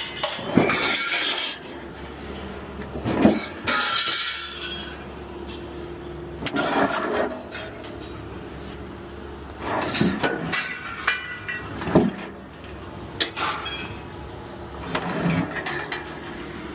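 Pieces of scrap metal being tossed onto a scrap pile: a string of irregular clanks and clattering crashes, each with a brief metallic ring, over a steady low hum.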